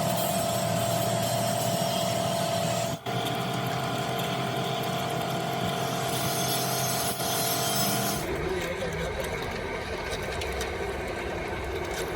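Workshop machinery running steadily with a hum, its sound changing abruptly about three and eight seconds in.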